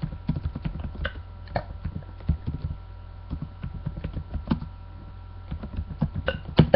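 Typing on a computer keyboard: irregular clicks and taps, over a steady low hum.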